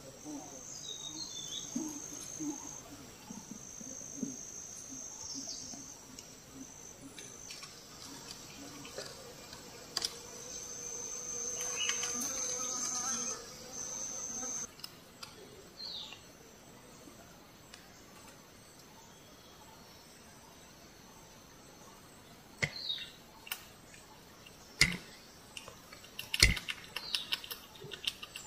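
Insects in the forest keep up a steady high-pitched buzzing trill, broken by short pauses, through the first half, with a few brief bird chirps. In the last several seconds a series of sharp clicks and taps comes through, and these are the loudest sounds.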